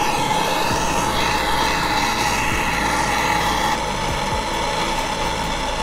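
Handheld gas torch burning steadily, a continuous hissing rush with a steady whistling note, as its flame heats an aluminum supercharger gearbox housing to free a stuck bearing race.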